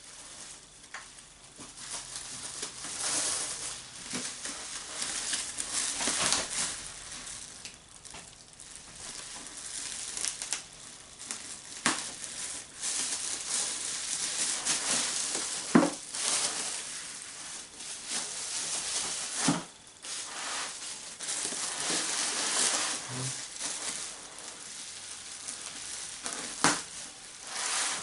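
A parcel being unwrapped by hand: packaging crinkling, rustling and tearing in uneven bursts, with a few sharp knocks as it is handled.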